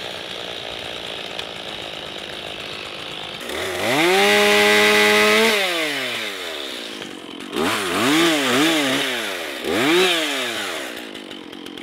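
Two-stroke chainsaw at idle, revved up and held for about two seconds around four seconds in, then blipped up and down several times in quick succession before settling back to idle near the end.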